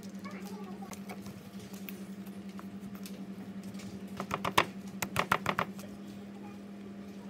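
Dough being kneaded by hand in a stainless steel bowl: soft patting and squishing, with a quick run of sharp knocks against the metal bowl about four to five and a half seconds in. A steady low hum runs underneath.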